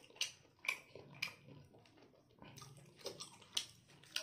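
A person eating close to the microphone: wet chewing and lip-smacking, a string of sharp smacks at an uneven pace, about two a second.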